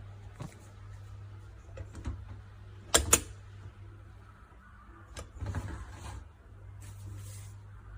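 Aluminium moka pot parts being handled: two sharp clicks about three seconds in, then rubbing and scraping of the metal parts. A steady low hum runs underneath.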